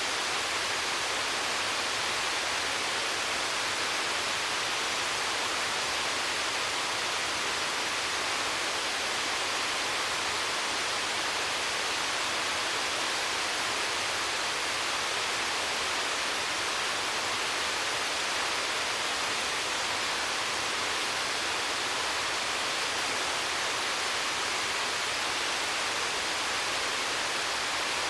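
Waterfall: a steady, unbroken rush of falling water, an even hiss that does not change.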